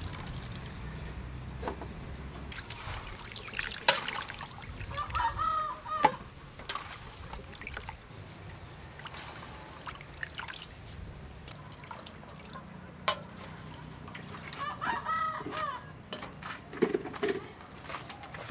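Hands scooping and stirring silkworm pupae in a metal basin of water, with splashes and trickling as they are washed. A chicken calls twice in the background.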